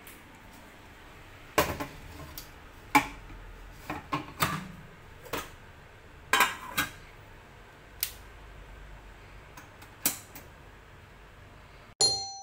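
Metal clinks and knocks of a rice cooker's aluminium inner pot and steel lid being handled: a dozen or so short, separate knocks at uneven intervals as the pot is set in and the lid fitted.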